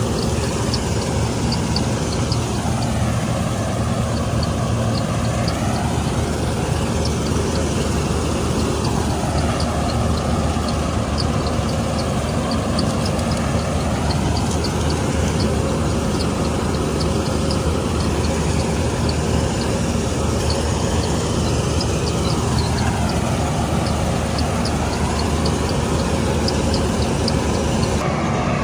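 Combine harvester's diesel engine running steadily at working speed, with a quick, regular light ticking from the machinery over it.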